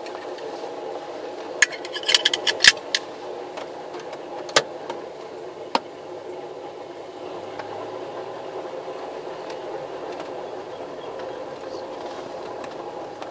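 1964 Jaguar Mark 2 3.4-litre's XK straight-six engine running steadily at low revs as the car reverses slowly. About two seconds in there is a quick cluster of sharp clicks and clunks, and two more single clicks follow a few seconds later.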